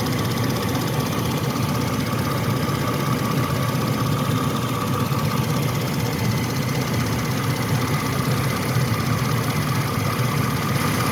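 1998 Chevy C1500's 5.0L V8 idling steadily with a constant ticking from the engine bay, which the owner suspects comes from the rotor area.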